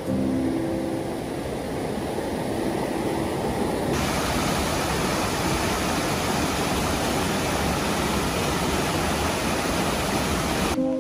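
Steady rush of a rocky forest stream cascading between boulders. About four seconds in it turns brighter and hissier.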